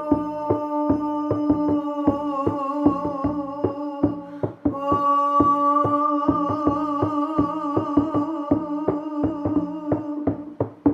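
A drum beaten steadily at about three to four beats a second under a held, droning tone whose overtones waver and shift. The drone breaks off briefly about four and a half seconds in and again near the end while the drumming carries on.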